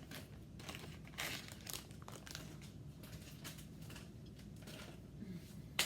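Packaging crinkling and rustling in irregular bursts as it is handled, with a single sharp click near the end.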